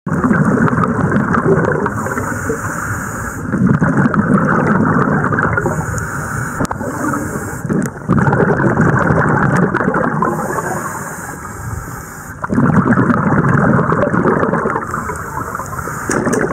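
Scuba diver breathing through a regulator, heard from the camera underwater: a hiss on each inhale alternating with a rumble of exhaled bubbles, the cycle repeating about every four seconds.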